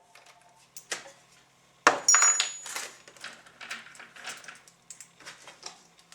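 Metal parts and tools clinking and clattering on a workbench: a sharp metal clank just under two seconds in that rings briefly, then a run of lighter clinks and taps.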